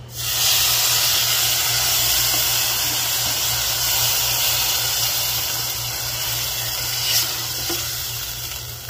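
Water poured into a hot pan of butter-fried vermicelli and sugar, flashing into a loud hissing sizzle of steam that starts suddenly and slowly dies down. A brief knock about seven seconds in.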